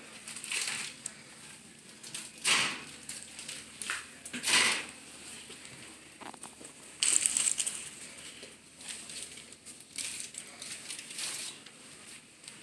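Aluminium foil crinkling and crushing in several irregular bursts as foil-wrapped food packets are handled.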